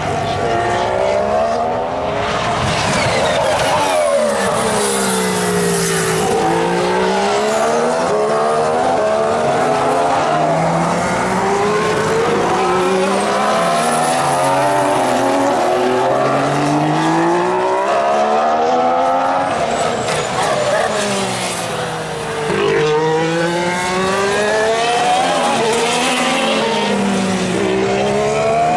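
2014 Formula 1 cars' 1.6-litre turbocharged V6 hybrid engines, several passing one after another through a corner. Each note falls as the car brakes and shifts down, then climbs through the gears as it accelerates away.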